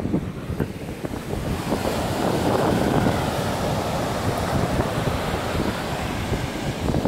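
Ocean surf washing ashore, swelling from about a second and a half in, with wind buffeting the microphone.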